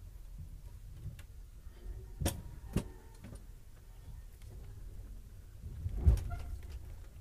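Amtrak passenger coach rolling slowly over yard track: a low rumble, with two sharp clicks about half a second apart a little after two seconds in and a heavier thump about six seconds in, as the wheels cross rail joints and switches.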